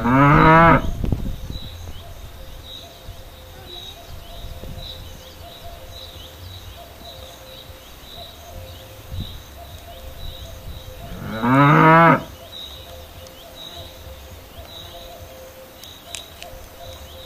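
A cow mooing twice, once at the start and again about eleven seconds later, each call about a second long and rising in pitch.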